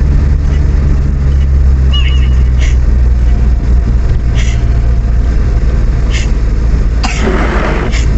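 Steady low rumble of a vehicle travelling on the road. A short rush of noise comes about seven seconds in.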